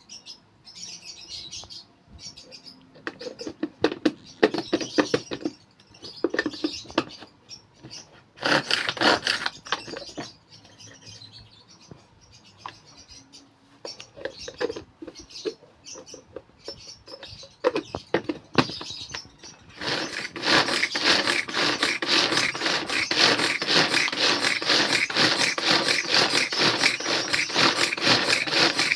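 Carrots and other vegetables being cut in a food chopper: bursts of rapid clicking and clattering that turn into a louder, continuous clatter about twenty seconds in, with pet lovebirds chirping in the background.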